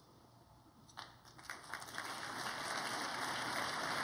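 Audience applause: after a near-silent second, scattered claps start and quickly build into steady clapping.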